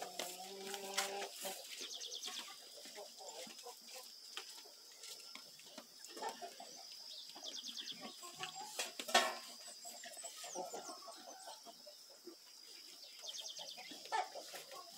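Chickens clucking on and off, with one sharp knock about nine seconds in. A thin steady high tone runs underneath.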